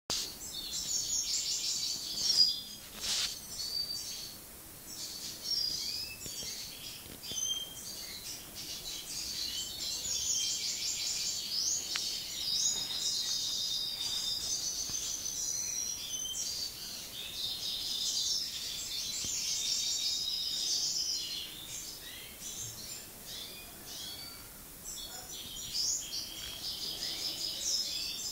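Goldfinches of the Iberian subspecies parva twittering and singing in a dense run of high, rapid chirps and trills, with a sharp knock about two seconds in.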